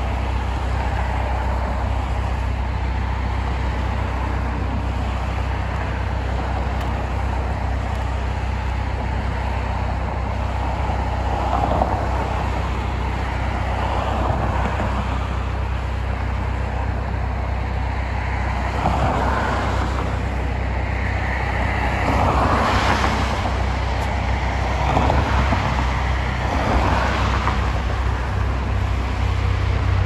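A backhoe's diesel engine running as it drives along the road toward the listener, a steady low rumble that grows stronger near the end. Cars pass by several times, each a swell of tyre and road noise.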